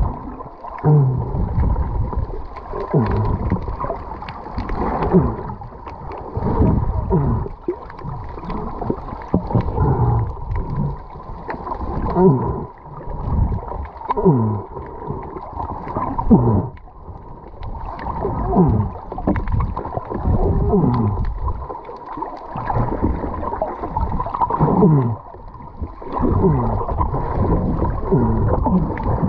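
Underwater sound picked up by a camera held beneath the surface: a muffled, steady wash of water with a constant hum and short falling tones that repeat every second or two.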